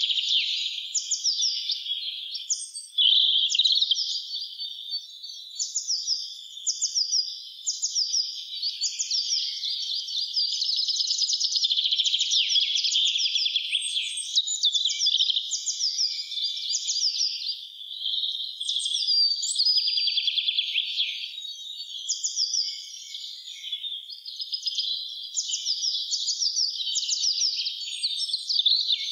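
Spring chorus of several songbirds singing at once, with a steady stream of quick, high notes, many of them sliding downward.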